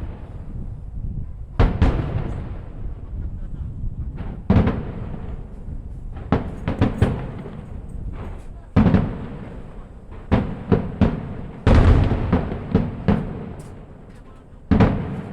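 Fireworks shells bursting overhead in a string of deep booms, some single and some in quick clusters of three or four, each booming bang trailing off over a second or more.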